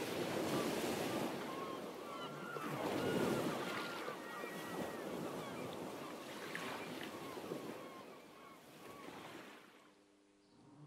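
Ocean surf sound effect: a steady wash of waves with a few faint high calls over it, fading out about nine seconds in.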